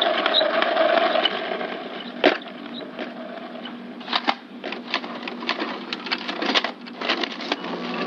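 Computer keyboard and mouse clicks, scattered and uneven, over a steady hiss: one sharp click a little after two seconds, then a run of quick taps in the second half.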